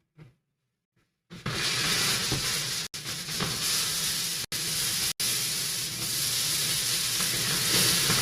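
Pork tenderloin searing in very hot oil in a pan, sizzling loudly. The sizzle comes in suddenly about a second in, as the meat is turned onto a fresh side, and cuts out for an instant three times.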